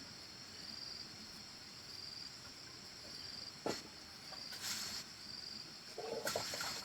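Crickets chirping in a steady, high, pulsing trill. There is a single sharp knock about halfway through, and brief rustling and clattering bursts near the end.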